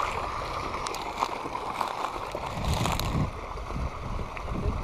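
Wind rumbling on the microphone, with a brief hiss about three seconds in.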